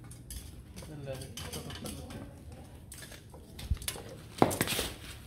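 Metal tongs clinking against a steel grill grate as fish are moved over the coals: a few sharp metallic clicks near the end, the loudest about four and a half seconds in.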